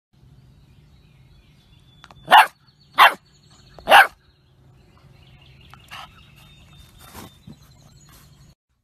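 Yellow Labrador puppy barking: three short, loud barks less than a second apart, about two seconds in.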